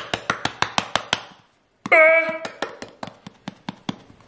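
Handheld pepper grinder being twisted, giving rapid ratcheting clicks about six or seven a second. There is a brief break, then a short high pitched tone about two seconds in.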